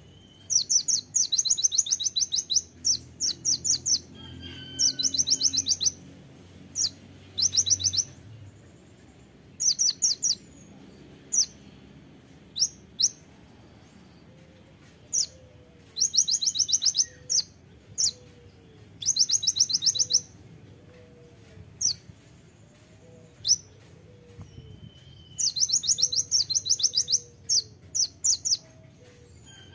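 Male Van Hasselt's sunbird singing its rapid-fire 'tembakan' song: fast trills of sharp, very high notes, each burst about a second long, repeated many times with single sharp chips between them.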